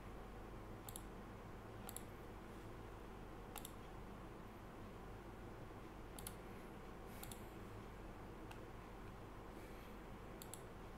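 About half a dozen faint, sharp clicks, spaced irregularly, from a computer being worked at the desk, over a low steady room hum.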